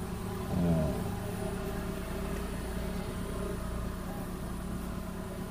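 Steady low engine hum, like a motor vehicle running, with a short falling vocal sound about half a second in.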